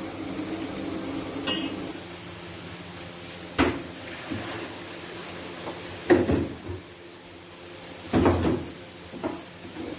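Large aluminium cooking pot knocking and clanking against a steel sink as parboiled beef shank and trotters and their water are tipped out to drain, the first boiling water being thrown away. There are several sharp metallic knocks, the loudest a little past six seconds and around eight seconds in, over a low steady hum.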